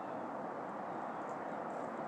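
Steady outdoor background noise: an even hiss with no distinct sounds standing out.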